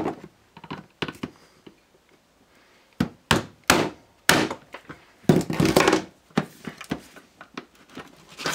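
A small screwdriver jabbing and prying at the plastic top plate of a portable RCD power box, giving a string of irregular sharp plastic clicks and knocks, busiest about five to six seconds in. The screwdriver is forcing out the plastic plugs that cover the case screws.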